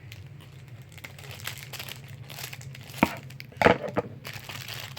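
Plastic wrapping being crinkled and torn open by hand to unwrap a small toy, with scattered rustles and a sharper crackle of plastic about three and a half seconds in.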